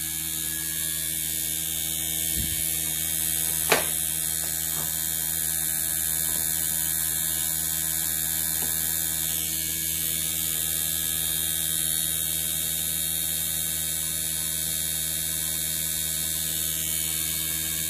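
Inverter-driven air-conditioner compressor running unloaded, a steady hum. One sharp click about four seconds in.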